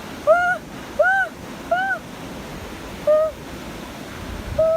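A high-pitched voice yelping "ah" five times in quick short cries, the sort of yelps a person gives stepping barefoot on hot sand. Steady surf washes underneath.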